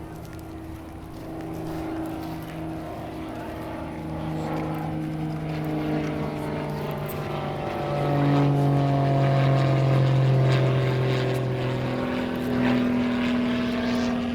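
A steady engine drone passing by, growing louder and peaking about two thirds of the way through, its pitch slowly falling as it goes.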